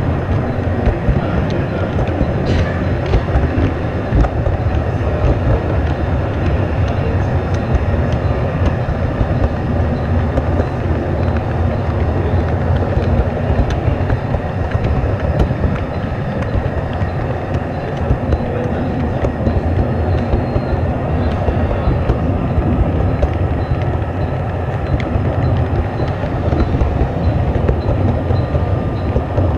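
Steady rolling rumble of O-gauge model freight wagons' wheels on the track, heard close up from a camera riding on the train, with occasional small clicks.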